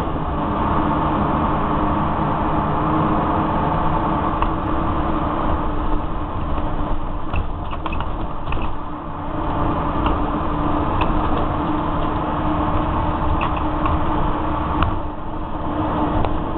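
Inside a Scania K93CRB single-deck bus on the move: its rear-mounted nine-litre straight-six diesel runs steadily, with the body panels and seat rails rattling and clicking now and then.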